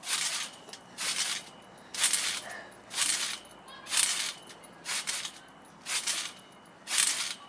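A trampoline's mat and springs giving a short noisy rasp on each landing as a child bounces steadily, about once a second, eight bounces in a row.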